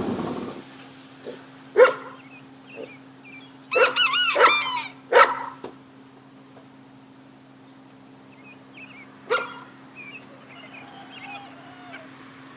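A dog barking: a single bark, then a quick run of several barks about four to five seconds in, and one more bark later. A steady low hum runs underneath.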